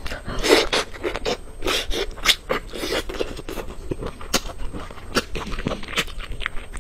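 Close-miked eating sounds: biting into and chewing soft braised meat, with a dense run of wet smacks and clicks.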